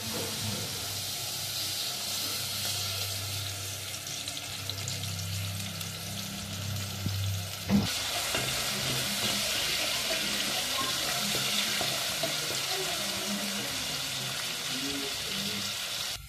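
Sliced onions sizzling as they fry in oil in an aluminium pot, stirred with a wooden spoon. A single sharp knock about eight seconds in.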